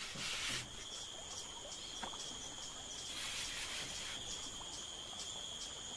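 Insects trilling steadily in a high-pitched chorus, with a brief soft rush of noise at the start and another about three seconds in.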